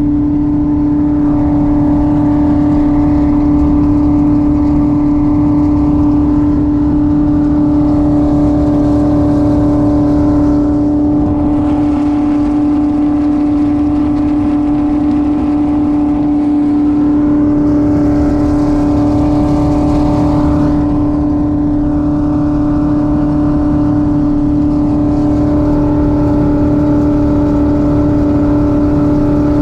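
LS-swapped jet boat's V8 engine running under way at a steady speed, one constant engine note that neither rises nor falls.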